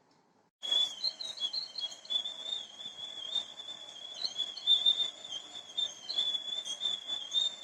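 A covered idli steamer letting off steam: a steady high-pitched whistle that wavers slightly in pitch over a faint hiss. It starts about half a second in.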